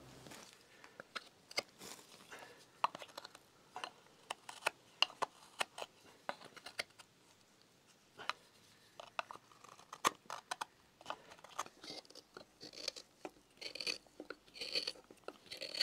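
Small double-edged hook knife carving out the inside of a wooden kuksa bowl: a run of short, irregular paring cuts and clicks as shavings come away, with a few longer scraping strokes near the end as the bottom is tidied.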